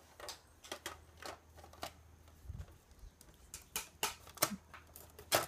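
Hard plastic parts of a toy doll high chair clicking and knocking as the seat's pegs are pushed into the holes and slots of the legs. The clicks are irregular, with a dull bump about halfway and quicker clicks near the end.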